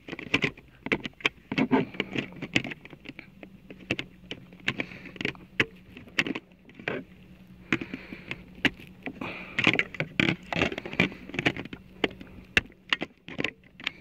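Plastic parts of a handheld 12V car vacuum clicking, knocking and rattling as the nozzle piece is fitted back onto the body by hand, with the vacuum switched off. A faint steady low hum runs underneath.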